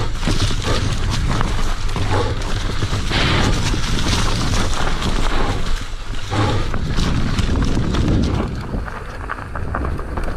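Wind buffeting the microphone as an e-mountain bike rides a dirt trail, with tyre noise and many short rattles and clicks from the bike going over bumps.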